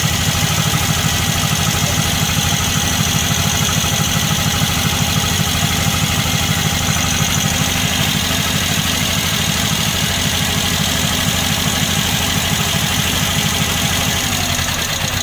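UD-2 two-cylinder air-cooled petrol engine idling steadily on a homemade tractor, running with its oil pressure restored after a rebuild for lost oil pressure. It starts to slow right at the end.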